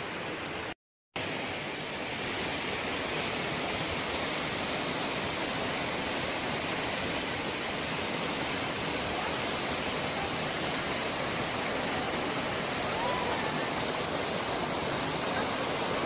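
Small river waterfall rushing over rocks into a pool: a steady, even rush of water. It cuts out to silence for a moment about a second in, then comes back slightly louder.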